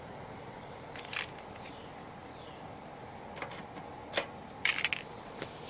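A few brief clicks and rustles from hands working a refrigerant quick coupler on a service port, the loudest a short cluster near the end, over a steady low hiss.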